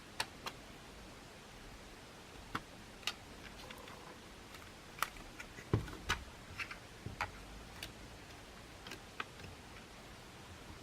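Irregular clicks and light knocks of small hard plastic and metal parts being handled during the disassembly of a cordless stick vacuum, with one heavier thump about halfway through.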